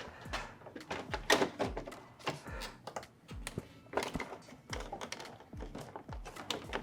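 Irregular clicks and knocks of plastic parts being handled and pressed into place while an LED badge and its mounting are test-fitted into a car's front grille.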